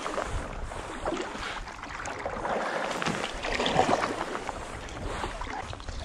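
Canoe being paddled through choppy water: water splashing and lapping at the hull with each stroke, with wind on the microphone. The splashing swells and eases, loudest about four seconds in.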